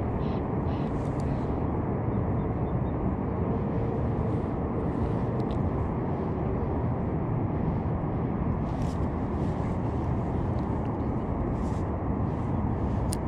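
A steady low rumble of outdoor background noise, with a few faint short ticks near the end.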